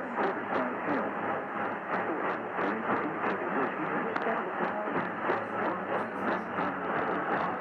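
Noisy radio reception: a steady hiss of static cut off above a narrow band, with regular clicks of interference about three times a second.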